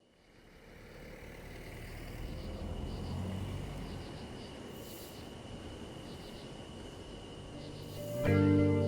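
Outdoor ambience fading in, with a low rumble that swells and eases off and a thin steady high tone above it. Guitar music starts near the end.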